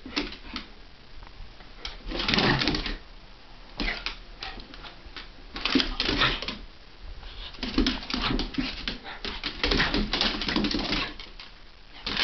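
A Havanese and a Jack Russell terrier play-fighting: repeated bursts of play growling and snarling, about every two seconds, mixed with rapid clicking and scrabbling of claws on a hardwood floor.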